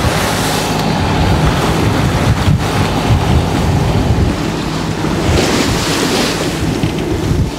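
Wind buffeting the microphone over the rush and hiss of waves breaking along the hull of a Westsail 42 sailboat under way in rough seas. The hiss of the water swells at the start and again about five and a half seconds in.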